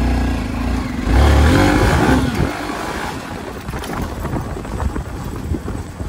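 Hero XPulse 200's single-cylinder motorcycle engine pulling away and accelerating, loudest about a second in, then running steadily as the bike rides off at low speed.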